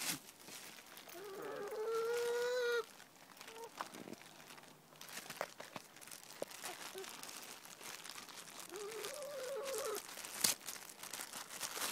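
Ex-battery hens calling: two drawn-out calls, the first about a second in lasting over a second, the second shorter, near the end, with scattered soft clicks and taps between.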